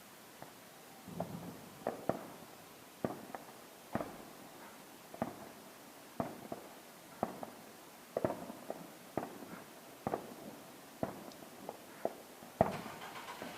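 Sharp pops about once a second, some doubled. Near the end a louder bang sets off a spreading crackle of fireworks.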